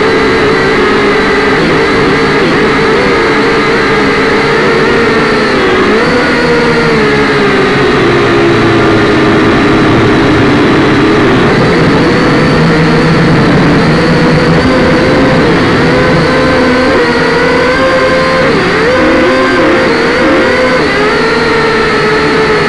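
Syma X5C-1 quadcopter's four small electric motors and propellers buzzing loudly, heard close up through its own onboard camera. The pitch wavers, dipping and rising again and again as the throttle changes in flight.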